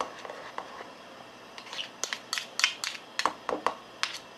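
A spoon clinking and scraping against a small bowl while stirring a thick gochujang sauce, in quick irregular taps that grow busier about two seconds in.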